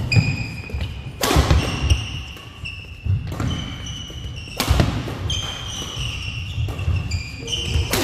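Doubles badminton rally in a gym: a racket strikes the shuttlecock about every one to two seconds, sharp and echoing in the hall. Between the strikes, court shoes squeak briefly and high on the floor while players' steps thud.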